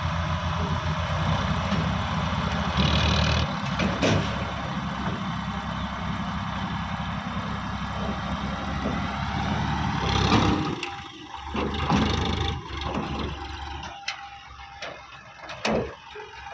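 Diesel engine of heavy machinery running steadily, with a few sharp knocks. About ten seconds in it drops away and turns quieter and broken.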